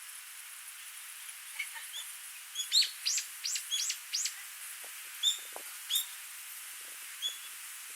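A small songbird calling: a quick run of about five sharp, downward-sweeping high notes, then a few single chirps. The steady hiss of a small stream runs underneath.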